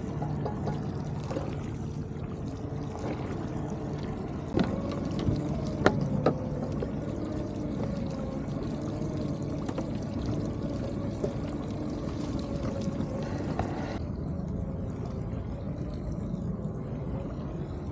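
A motor running steadily aboard a shrimping boat, with water pouring and trickling. A few sharp knocks come about five to six seconds in.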